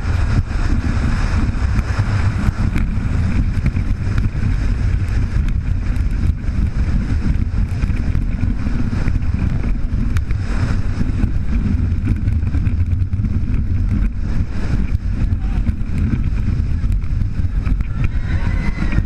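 Furius Baco roller coaster train racing along its track at speed: a continuous heavy low rumble and rush of wind buffeting the camera's microphone, with no let-up through the banks and turns.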